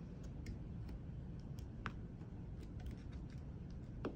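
Faint scattered clicks and taps from hands handling multimeter test probes and leads, over a low steady background rumble, with a sharper knock near the end.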